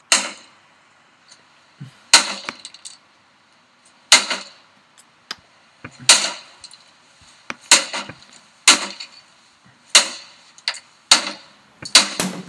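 Recorded smashing of rave equipment: hard crashing impacts with breaking, rattling debris after each, about every two seconds at first and roughly once a second in the second half.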